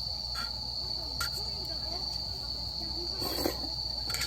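Crickets or other night insects singing in one steady, unbroken high trill, with a few soft clicks.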